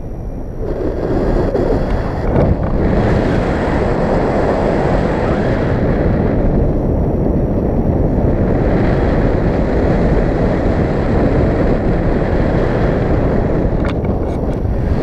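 Wind rushing over an action camera's microphone during a tandem paraglider flight: a steady, loud, low rush that swells about a second in. There are a few light clicks near the end.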